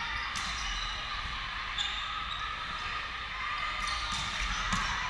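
Indoor volleyball rally: a few sharp ball hits over the steady background noise of a large gymnasium.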